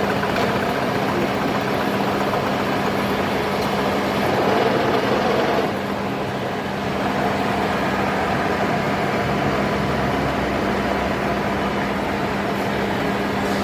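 Engine of a motorised rotary tiller running steadily with a constant hum. It grows a little louder between about four and six seconds in, then drops back.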